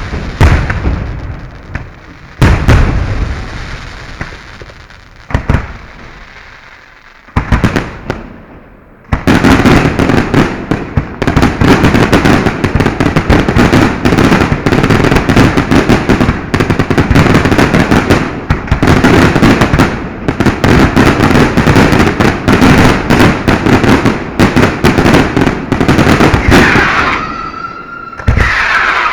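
Fireworks going off at close range: a few single loud bangs a couple of seconds apart, then from about nine seconds a dense, rapid barrage of bangs and crackle. Near the end a whistling tone rises over the barrage.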